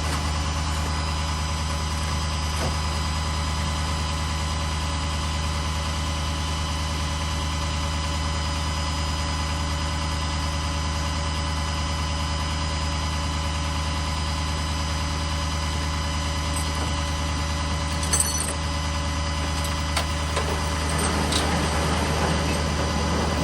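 A vehicle engine idling with a steady low hum, with a single click about eighteen seconds in.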